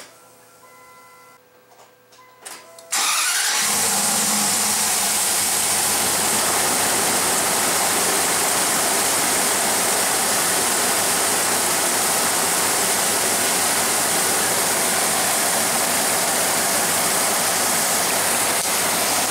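A Dodge 4.7-litre SOHC V8 cranks briefly and catches about three seconds in, on its first start after a cylinder head replacement. It then settles into a steady, smooth idle.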